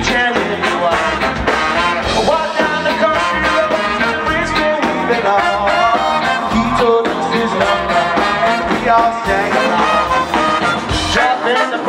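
Live ska band playing: trumpet and saxophone over electric guitar, bass and drums in a steady upbeat groove, with no words sung. The bass drops away near the end.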